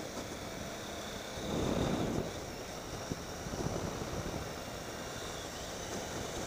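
A Triumph Tiger 800 XCx's three-cylinder engine running steadily while riding a dirt road, mixed with wind noise on the microphone. It swells louder briefly about a second and a half in.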